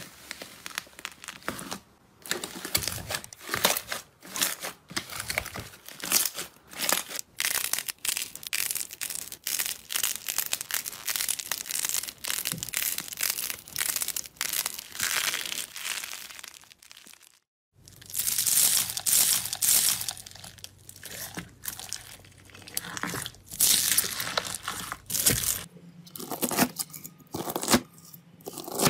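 Hands pressing, squeezing and pinching slime, making a dense run of crackling, crinkling pops and clicks, broken by a brief silence about halfway through. Near the end a knife cuts through a slime packed with small beads, with sparser clicks.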